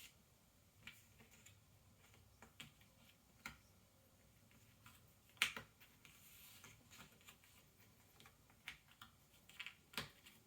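Cardboard jigsaw puzzle pieces being handled and pressed into place on a table: faint, irregular clicks and taps, the loudest about halfway through, with a brief soft scrape just after it.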